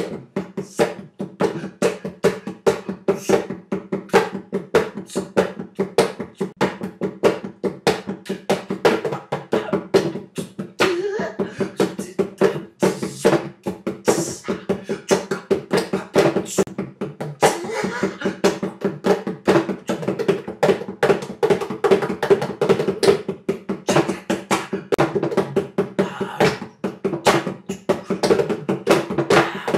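Hand percussion played on the back of an acoustic guitar's body: a quick, steady rhythm of knocks and slaps, layered in a multitrack mix, over a steady low tone.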